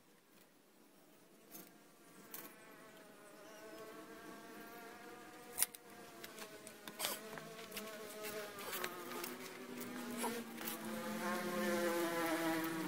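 A flying insect buzzing close to the microphone, its pitch wavering as it moves about, growing louder toward the end. A few sharp clicks, the loudest about five and a half seconds in.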